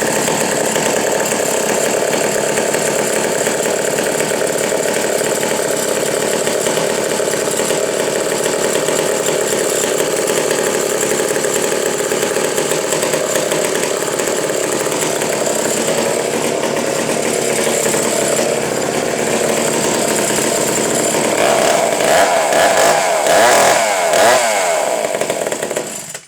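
A 99 cc two-stroke McCulloch 740 chainsaw, ported and tuned, running steadily. Near the end it is revved up and down several times, then it shuts off suddenly.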